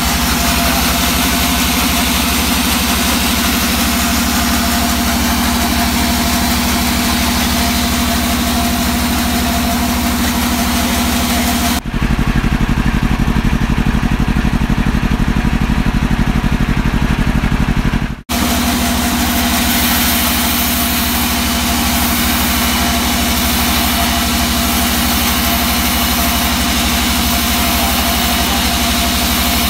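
Band sawmill running steadily, its motor humming under the hiss of the spinning blade. About twelve seconds in, a deep bass-heavy logo sting takes over for about six seconds and cuts off suddenly, and then the sawmill noise returns.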